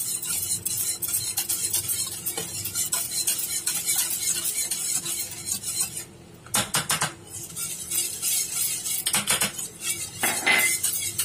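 Wire whisk beating against the sides and bottom of an aluminium pot, a rapid, steady clinking and scraping as custard powder is whisked into a mango drink. It eases off briefly about six seconds in, then comes back in a few harder strokes.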